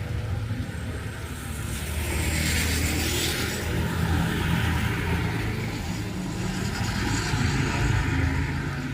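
A motor vehicle going by on a wet road: a low engine hum with a tyre hiss that swells about two to three seconds in and again, more faintly, near the end.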